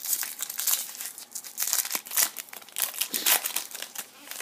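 Foil wrapper of a 2014 Bowman Chrome football card pack crinkling and tearing as it is ripped open and the stack of cards is pulled out: a dense, irregular crackle.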